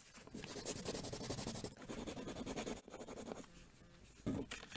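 Faint scratchy, crackling noise, like a pen scratching on paper, in a few stretches with short breaks, as a logo intro sound effect.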